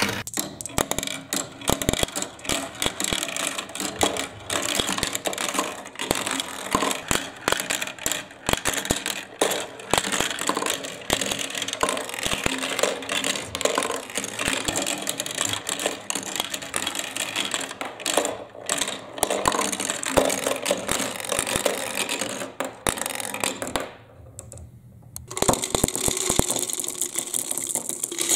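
Glass marbles rolling and clattering down a plastic marble run, a dense stream of quick clicks and knocks. Near the end, after a brief lull, a steadier rattle.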